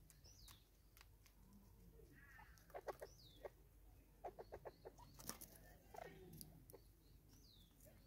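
Natal spurfowl feeding at a seed feeder: faint runs of short quick clicks, clustered about three to five seconds in. Three short, high, falling bird chirps are heard near the start, in the middle and near the end.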